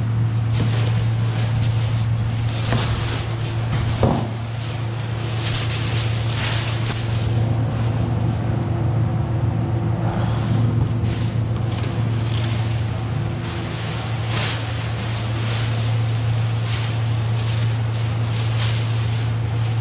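Plastic masking sheeting crinkling and rustling as it is pulled from its box and shaken open, over a steady low hum, with a single knock about four seconds in.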